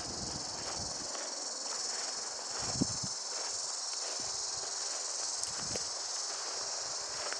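Insects droning steadily in a high, continuous buzz, over a walker's footsteps on the woodland ground, with one sharper step a little under three seconds in.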